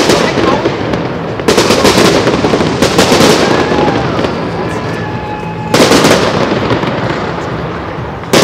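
Fireworks bursting overhead: a loud bang at the start, another about a second and a half in, and a third near six seconds in, each followed by a dense crackling that slowly dies away.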